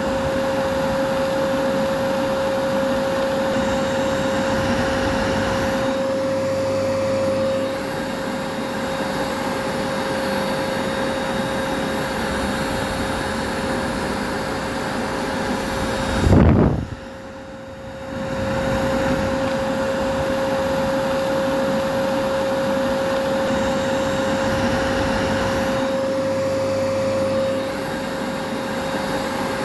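Vacuum cleaner motor running steadily, a rushing noise with a constant whine. About halfway through there is a brief loud low thump, and the noise dips for a couple of seconds before it comes back to full.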